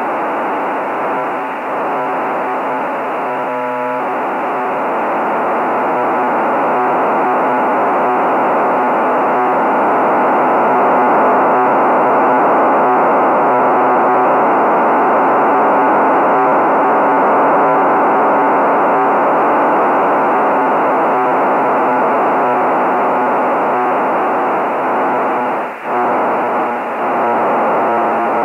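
Receiver audio of the HuskySat-1 satellite's 1200 bps BPSK telemetry downlink: a steady hiss with a buzzy data tone in it, with a brief dropout near the end.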